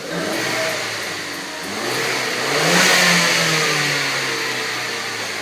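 Ford Edge 2.0L EcoBoost turbocharged four-cylinder engine revving: the pitch and loudness climb to a peak about three seconds in, then ease back down.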